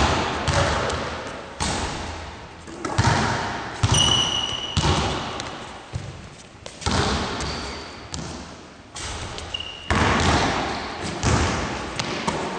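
Basketballs bouncing on a hardwood gym floor: irregular sharp thuds, each ringing out in the big hall. A couple of short high squeaks from basketball shoes on the floor come partway through.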